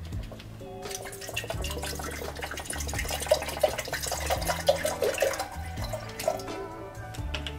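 Water poured from a large plastic bottle into an electric kettle, a splashing pour that starts about a second in and stops about six seconds in, with soft background music underneath.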